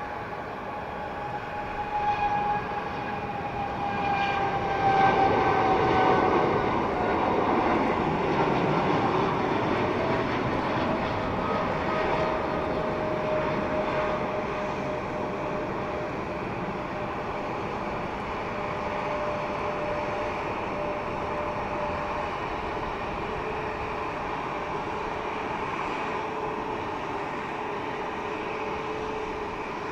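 Jet airliner taking off, the Boeing 777-200ER's GE90 turbofans at takeoff thrust. It grows loudest a few seconds in, and the engine whine drops in pitch as it passes, then it fades slowly as it climbs away.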